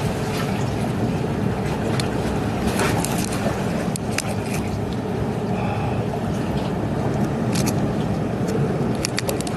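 Steady rumble of strong wind and rough surf, with scattered sharp clicks and knocks.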